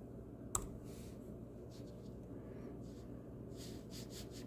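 Computer mouse clicking: one sharp click about half a second in, then a few faint soft clicks over a steady low room hum.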